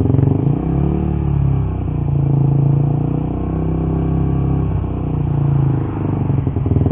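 Suzuki GSX-R150's single-cylinder engine through an R9 Misano aftermarket exhaust, held at low revs around 2000 rpm and running unevenly, the pitch rising and falling a little. This is the stutter the owner hears at 2000 rpm, which he puts down to the stock ECU and spark plug not matching the free-flowing exhaust.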